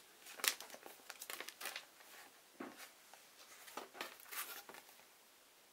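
Clear plastic bag crinkling in short, irregular crackles as it and the papers inside it are handled.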